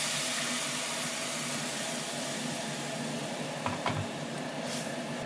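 Water poured into a hot kadai of fried chicken masala, sizzling and hissing steadily as it hits the hot pan and comes to the boil. A couple of light knocks near the four-second mark.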